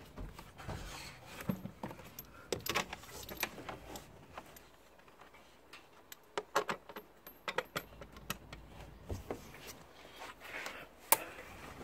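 Scattered small metallic clicks and clinks of screws and hand tools being handled while screws are fitted to an engine cover, with one sharper click near the end.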